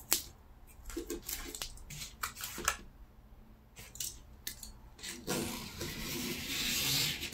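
Craft knife and ruler on paper: a sharp click at the start, then scattered light ticks and taps. About five seconds in comes a longer scratchy rasp of the blade and paper that grows louder toward the end.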